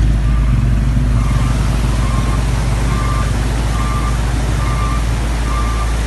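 Steady loud rush of floodwater mixed with a vehicle engine's low rumble, with a short electronic beep repeating about once a second, like a vehicle's reversing alarm.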